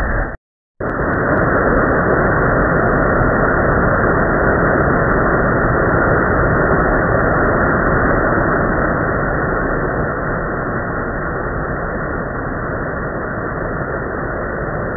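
Steady rush of white water tumbling over rocks, a small cascade pouring between boulders into a pool. It breaks off for a moment of silence about half a second in, then runs on unchanged.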